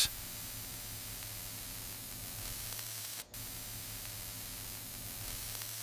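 Steady hiss with a faint low hum underneath, cutting out for a moment a little past three seconds in.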